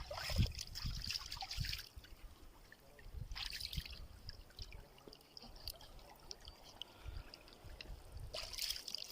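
Water trickling and splashing in short spells, about three of them, as the gutted fish is rinsed clean, over a low rumble.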